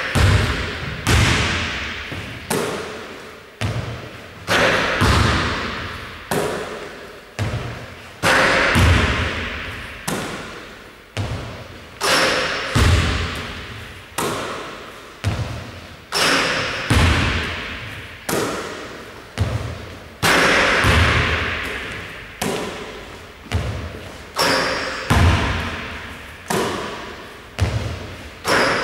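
Basketball repeatedly thumping on a wooden gym floor and bouncing off the hoop during shooting and rebounding, about one impact a second. Each impact echoes through the hall.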